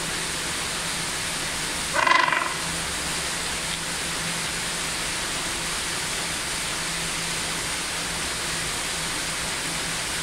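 A gentoo penguin gives one short call about two seconds in, over a steady background hiss with a low hum.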